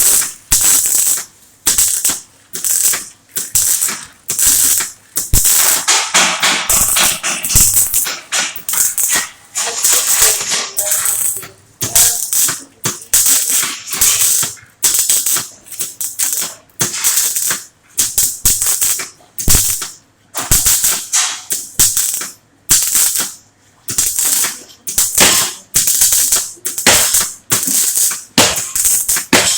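Semi-automatic MIG welder arc crackling in repeated short bursts that start and stop every second or so, a stitch-welding pattern, with one longer run of several seconds early on.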